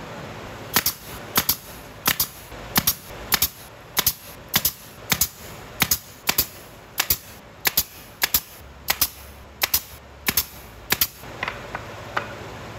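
Nail gun firing about seventeen times in a steady run, a sharp snap roughly every 0.6 s, driving nails into wooden battens of a frame; a few lighter knocks follow near the end.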